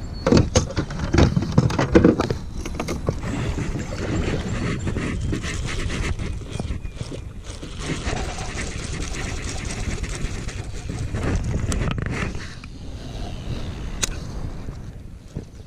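Knocks and bumps of fishing gear being handled against a plastic fishing kayak, loudest in the first two seconds, over a steady low rumble and rustle.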